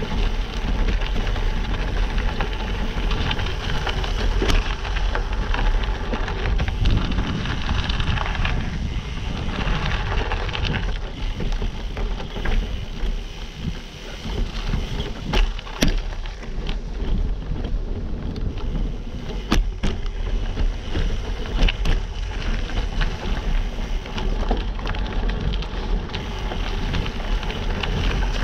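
Gravel bike rolling over a dirt and rock trail: tyres crunching, with rattles and occasional sharp knocks from the bike. A constant low wind rumble sits on the GoPro's microphone.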